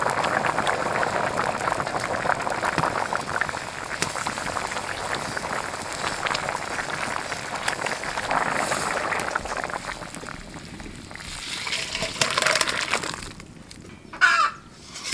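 Potato and cauliflower curry boiling vigorously in a large open pan, a dense steady bubbling and spitting that fades over the last few seconds. A brief louder sound comes near the end.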